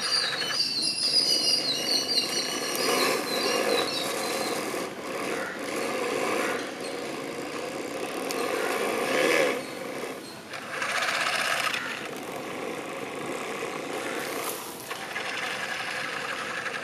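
Hydraulic pump and drive motor of a 1/16-scale, fully 3D-printed RC excavator running steadily, getting louder in stretches as the boom and bucket move and dig under load.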